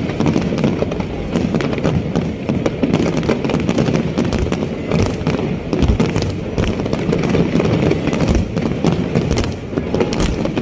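Fireworks display: a dense, unbroken barrage of bangs and crackling pops from many shells going off together.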